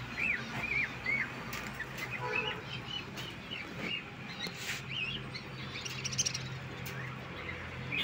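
A group of caged lovebirds chirping: many short, shrill, arching calls, busiest about six seconds in, over a steady low hum.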